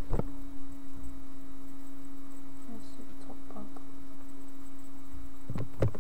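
A steady electrical hum holding one pitch, with a fainter higher overtone, plus a few short knocks just after the start and near the end.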